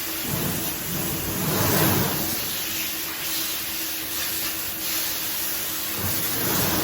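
Rotary milking parlour machinery running: a steady hiss of air and vacuum with a low steady hum, swelling into a louder rush about a second in and again near the end.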